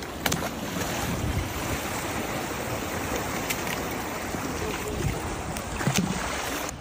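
Wind buffeting the microphone over lapping water, with a few light knocks and a splash about six seconds in as a pump's suction hose is flung into the tide pool.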